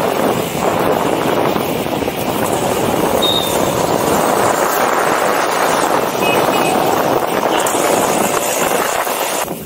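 Skate wheels rolling steadily over a road surface, a continuous gritty rolling noise.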